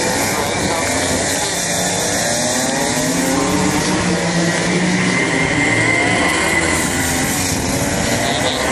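Several racing go-kart engines at high revs as a pack of karts races past, their pitch sliding up and down as they brake and accelerate through the bends.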